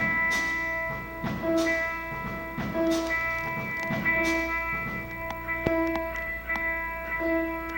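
Instrumental music: held tones under a short melodic figure that repeats about every second and a half, with light percussive hits.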